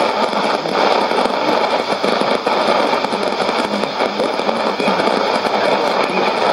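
Sony shortwave receiver's loudspeaker giving out steady hiss and static on an AM shortwave signal, the broadcast buried in the noise.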